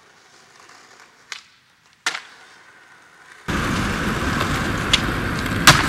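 Skateboard tricks: a sharp pop a little over a second in and a louder landing smack about two seconds in. From about three and a half seconds the wheels roll rough and loud on concrete, with two more clacks of the board near the end.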